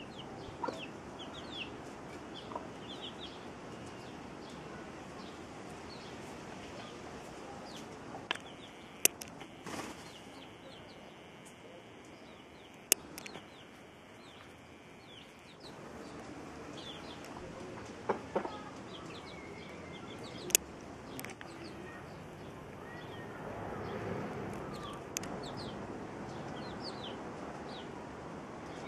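A hen clucking while her chicks peep in many short, high chirps, with a few sharp clicks standing out now and then.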